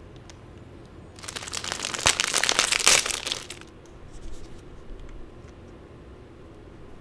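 Clear plastic wrapper of a torayaki pancake crinkling loudly for about two and a half seconds as it is torn open, followed by softer rustles of plastic as the pancake is handled out of its tray.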